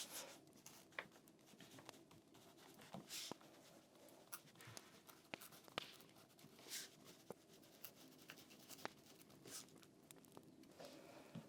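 Faint pen-on-paper writing: short scratchy strokes with scattered light clicks, over a low steady room hum.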